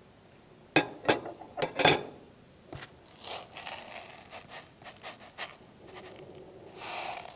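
Handling sounds while making sandwiches: a few sharp knocks and scrapes in the first two seconds, then plastic packaging rustling as it is handled, with small clicks.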